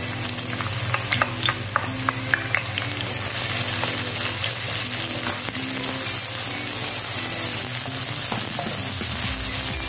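Chopped onion sizzling in hot oil in a nonstick wok while being stirred with a wooden spatula, with a few light clicks in the first few seconds.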